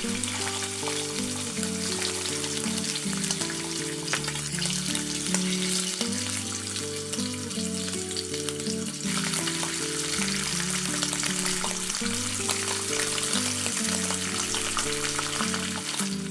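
Thin-sliced marbled beef sizzling and crackling in hot fat in a pan, a steady dense hiss with many small pops. Soft background music with low plucked notes plays underneath.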